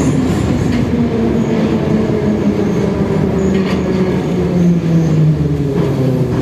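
Metro train running through the tunnel, heard from inside the car: a steady rumble of wheels on the rails, with a motor whine that slowly falls in pitch as the train slows for the next station.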